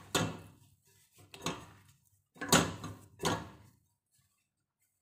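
Gloved hands mixing raw chicken pieces with cornstarch in a bowl: four short scraping, rustling strokes about a second apart, the third the loudest.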